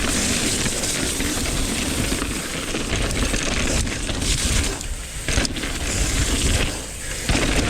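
Mountain bike riding down a trail: wind buffeting the microphone over the rush of tyres and the rattle of the bike on the ground, easing off briefly twice.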